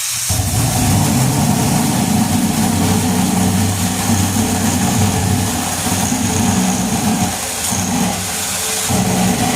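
A 6-inch drill-powered chainsaw attachment, driven by a drill, running and cutting through a piece of wood. The motor and chain make a loud, steady noise whose level dips briefly a couple of times as the bar bites.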